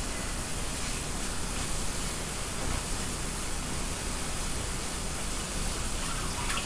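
Kitchen tap water running steadily over cooked pasta noodles in a colander, rinsing them with cold water to cool them.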